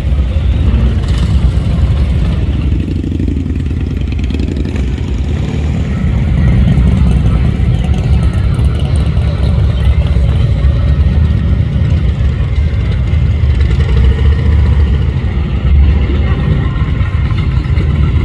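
Motorcycle engines running, a steady low rumble that swells louder about six seconds in and again near the end.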